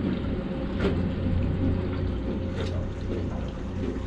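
Boat engine idling steadily with a low hum, and a couple of brief clicks over it.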